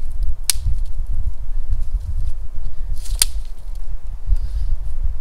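Newly lit campfire of dry pine needles and thin sticks crackling, with two sharp pops, one about half a second in and one about three seconds in, over a steady low rumble.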